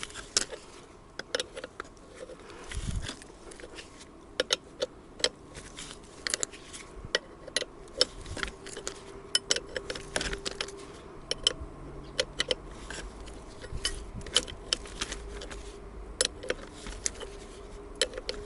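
Irregular metallic clicks and clinks of a wrench working the nut on a car's rear shock absorber strut, a nut that keeps spinning on the spot rather than unscrewing.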